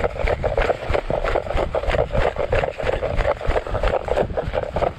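Strong gusting wind buffeting the microphone, a dense rough rumble, with quick footsteps on wet grass knocking through it.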